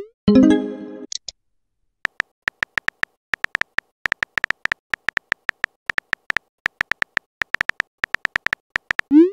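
Chat-app sound effects. A short rising swoop ends right at the start, followed by a brief message tone. About two seconds in, quick keyboard-typing clicks begin and run for roughly seven seconds as a message is typed. Another rising swoop comes near the end as the message is sent.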